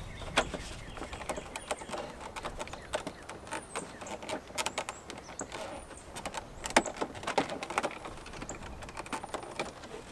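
Irregular plastic clicks and knocks from handling a 2004 Chevrolet Silverado's loosened interior door panel while its courtesy-light bulb socket is worked out of the panel. The sharpest knock comes a little before the end.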